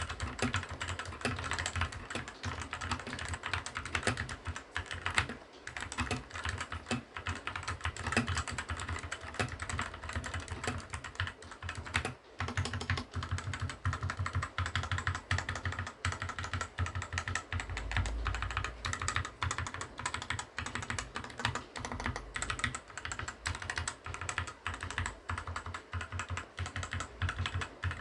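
Fantech MAXFIT61 mechanical keyboard being typed on fast and without let-up, a dense stream of key clicks and keystrokes with a couple of brief pauses.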